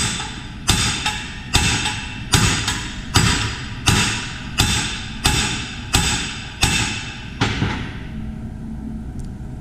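Hand hammer striking thick steel plate about eleven times, roughly one blow every three-quarters of a second, each blow ringing briefly; the blows stop about seven and a half seconds in. The hammering presses the 19 mm steel plates of a CNC router's moving gantry together for tack welding.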